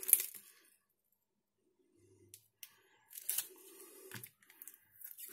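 Clear packing tape being handled and smoothed by hand onto a copper-clad circuit board: a few short, faint scratchy rustles from about two seconds in.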